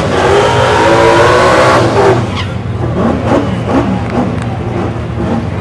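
Drag race cars' engines at the starting line: one held at high revs through a burnout, its pitch climbing and then cutting off about two seconds in, followed by shorter blips of revving.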